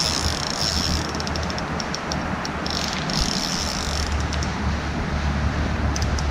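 Steady rush of a flowing river with wind rumbling on the microphone, and a spinning reel whirring and clicking in short stretches as line is reeled in.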